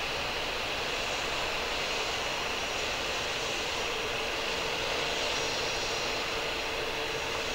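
Jet engines of a distant Airbus A320-216 running steadily: a constant rush with a high whine on top.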